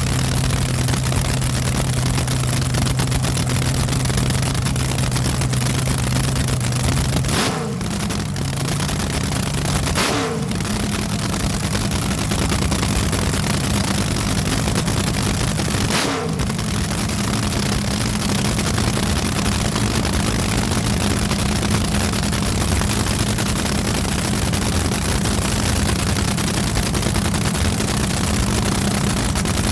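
Engine running loudly and steadily. Its note dips and glides three times, the last about halfway through, after which it holds a higher steady pitch.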